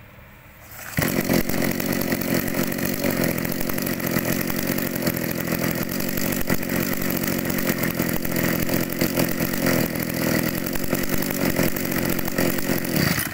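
Mitsubishi TL261 brush cutter's small two-stroke engine running steadily. It comes in suddenly about a second in.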